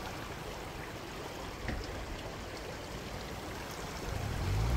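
Shallow, rain-swollen stream running over a gravel bed: a steady rush of flowing water. A low droning sound rises in near the end.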